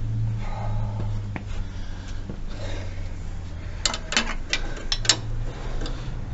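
Metal spanners clinking and clicking against each other and the pedal's pivot nut, a quick cluster of sharp clicks about four seconds in, over a steady low hum.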